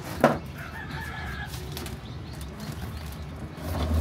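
Chickens making faint sounds over a low background rumble, with one sharp click shortly after the start.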